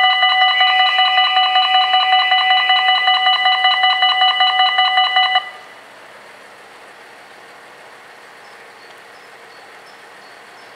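Two electric level-crossing bells at a Dutch automatic half-barrier crossing, ringing with rapid strokes while the barrier arms lower. They cut off suddenly about five seconds in once the barriers are down, leaving a faint steady background.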